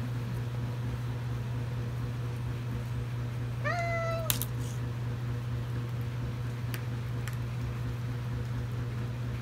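A small puppy gives one short, high whine about four seconds in, followed at once by a sharp click, over a steady low hum.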